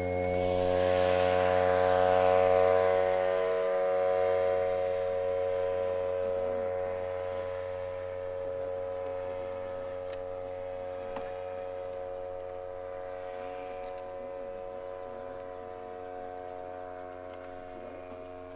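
Radio-controlled model tow plane's engine running at full power, pulling a scale glider up on aerotow. The steady drone peaks about two seconds in as the plane passes, then slowly fades as it climbs away.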